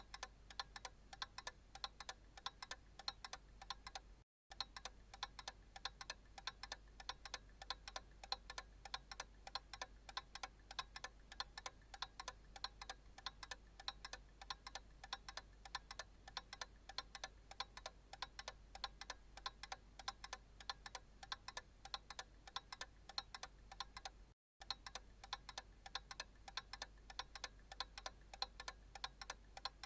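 Analog clock ticking steadily, a faint, even tick-tock that cuts out to silence for a split second twice.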